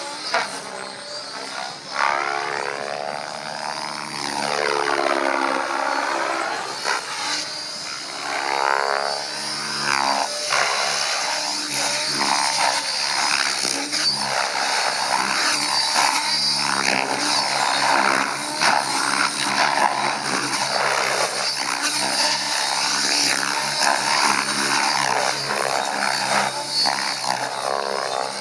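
Thunder Tiger Raptor E700 electric RC helicopter in 3D aerobatic flight: the motor whine and main rotor blades buzzing and whooshing, pitch rising and falling as it swoops back and forth.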